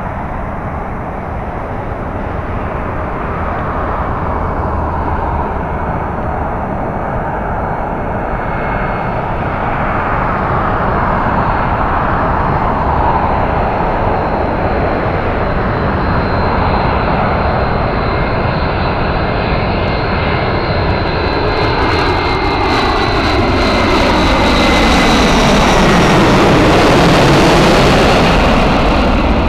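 Boeing E-4B (747-200B) on low final approach, its four GE F103 turbofans growing steadily louder with a high engine whine. Near the end it passes overhead: the sound peaks, takes on a sweeping, phasing quality, and the whine drops in pitch.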